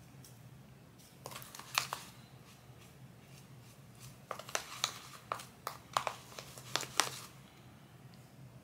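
Bleach powder and developer being stirred by hand into a paste: a run of irregular clicks and scrapes that starts about a second in and stops about seven seconds in.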